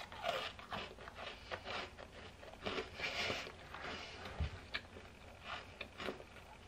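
A person chewing a half-burnt homemade Christmas cookie: irregular crunches and mouth noises.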